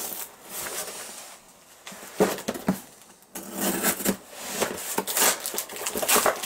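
Cardboard being torn and clear packing tape ripped off a long box: irregular crackling rips and tears, a quieter lull around a second in, a sharp tear at about two seconds, then dense tearing through the second half.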